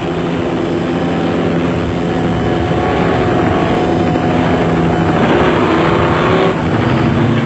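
Helicopter in steady flight, its engine and rotors making a continuous drone of several even tones over a rushing noise, the pitch wavering slightly now and then.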